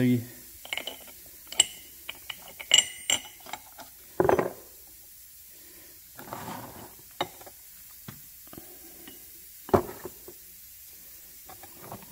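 Parts of a power steering pulley puller being handled and set down on a cardboard box: scattered clicks and light knocks, with a few brief scrapes, as the clamp halves, collar ring and forcing-screw plate are moved about.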